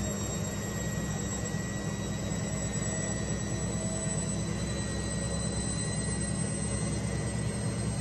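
IFB Senorita WXS front-loading washing machine running: a steady low hum with a faint high-pitched whine over it.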